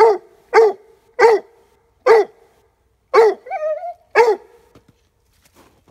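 Five-month-old leopard coonhound pup barking treed, head up at quarry in the tree: six sharp barks about half a second to a second apart, with a short wavering whine between the last two. The barking stops a little after four seconds in.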